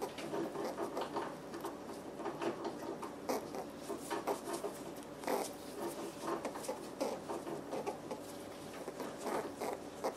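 Irregular scratchy rustling and scrabbling as a young western gray squirrel is rubbed with a terry-cloth towel and wriggles in the hand.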